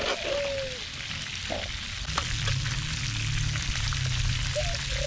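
Chicken frying and sizzling in a skillet over a wood fire, with a few clinks of a metal spoon against a stainless pot. From about halfway, cooked peas and their liquid pour out of the pot into a plastic bowl. There are two short falling squeals, one near the start and one near the end.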